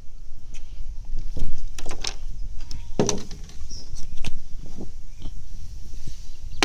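Wind rumbling on the microphone, with irregular knocks and clatter as the jointed wooden swimbait is pulled out of the water and handled over the wooden dock; the loudest knock comes about three seconds in.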